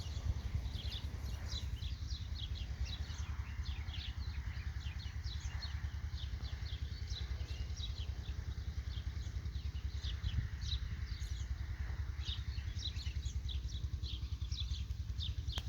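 Many small birds chirping in quick, overlapping calls, over a steady low rumble.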